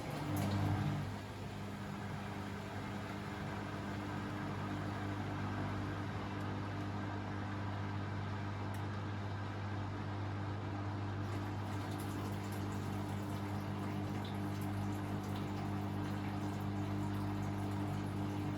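Beko WML 71433 NP washing machine with water running in it, and a steady low hum that starts about half a second in and holds.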